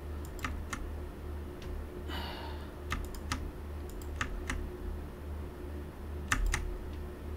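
Computer keyboard keys clicking in scattered presses, singly and in small clusters, as keys are tried to release the mouse cursor captured by the VirtualBox window, over a low steady hum.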